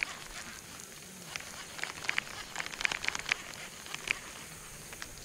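Baitcasting reel and rod being handled while a lure is reeled in: faint, irregular clicks and light crackling, bunched in quick runs through the middle.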